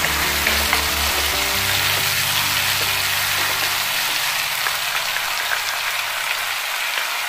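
Spicy chilli-garlic sauce paste sizzling in hot oil in a pan among curry leaves, garlic and green chillies as it is stirred with a wooden spatula: the sauce being fried down. Soft background music plays underneath and fades out near the end.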